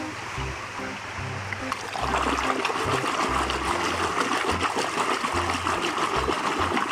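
Water splashing and rushing as a muddy toy is rinsed in a stream, louder from about two seconds in, over background music with a stepping bass line.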